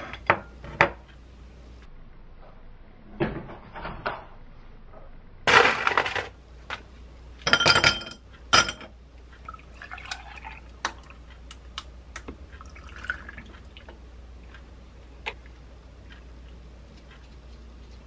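A drinking glass knocked down twice on a kitchen counter, then a few loud clattering rustles as things are handled, and milk poured from a carton into the glass, with scattered light taps afterwards.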